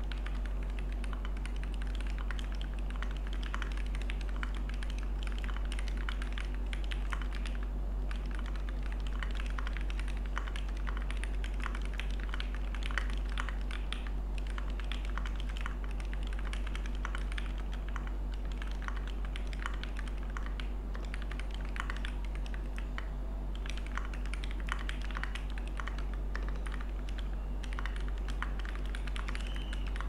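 Continuous fast typing on a Qwertykeys QK60 mechanical keyboard with an acrylic top, aluminium plate, lubed and filmed TTC Heart linear switches and AirC keycaps: a dense run of key clacks with a steady low hum underneath.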